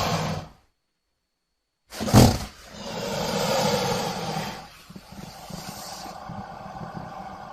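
Fan-mixed monster roar sound effects for Crustaceous Rex. A roar cuts off within the first half second, followed by a short silence. About two seconds in comes a sharp, loud burst, then a longer roar, and from about five seconds on a lower, steadier rumbling call.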